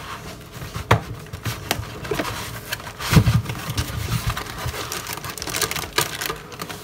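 Foam packing blocks scraping against a cardboard box and a clear plastic bag crinkling as a bench multimeter is lifted out of its packaging, with scattered clicks and a dull thump about three seconds in.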